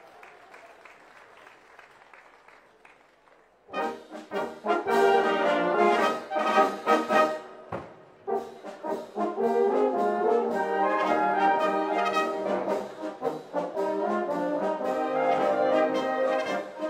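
A Tyrolean wind band (Musikkapelle) strikes up about four seconds in after a quiet pause and plays loudly, with tubas and other brass to the fore.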